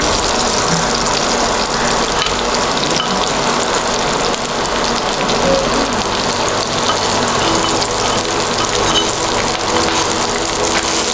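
Onion slices frying in butter in a nonstick pan, sizzling steadily while cooked rice is spooned in on top.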